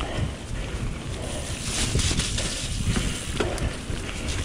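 Wind rushing over the microphone as a Vitus Sentier hardtail mountain bike rides fast down a wet dirt trail, with tyre noise and a few sharp knocks and rattles from the bike over the rough ground about two and three and a half seconds in.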